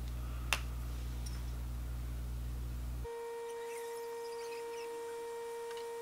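A steady low electrical hum with a single sharp click, which cuts off abruptly about three seconds in. It gives way to a steady high tone with overtones, a sustained electronic-sounding drone.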